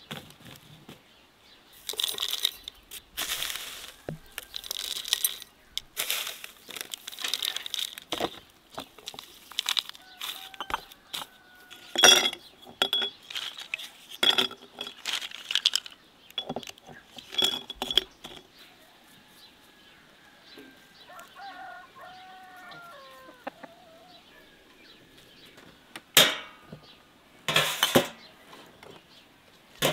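Dried spices and herbs handled in glass jars: dry rustling and pouring, with sharp clinks of sticks and jars against glass through the middle and two louder pouring or shaking rushes near the end. Fowl call faintly in the background partway through.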